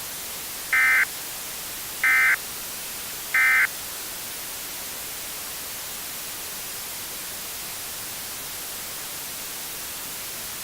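Three short bursts of NOAA Weather Radio SAME digital data tones, about a second and a quarter apart: the end-of-message signal that closes a weather alert. After them there is a steady hiss of static on the dead air.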